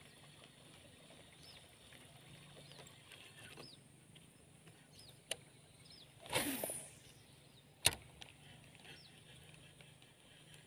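A fishing rod being cast: a light click, then a whoosh of about half a second as the rod swings and line runs off the reel, then a sharp click as the reel is engaged. Faint chirps of birds or insects repeat in the background.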